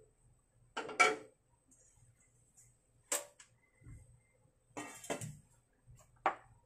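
Kitchen knife cutting carrot on a plastic cutting board: a handful of separate sharp chops, irregularly spaced about a second or more apart, the loudest about a second in and near the end.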